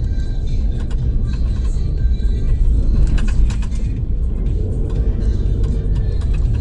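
Car on the move: a steady low rumble of road and engine noise, with music playing over it.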